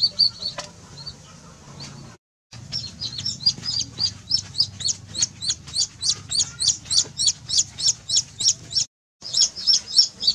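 A young chick peeping repeatedly: high, short, falling peeps at about three to four a second, breaking off briefly twice.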